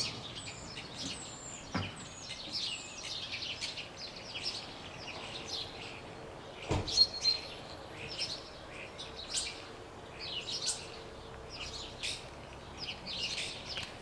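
Common starling (Sturnus vulgaris) singing: a rapid, varied, unbroken run of short whistles, chirps and clicks, loudest about seven seconds in.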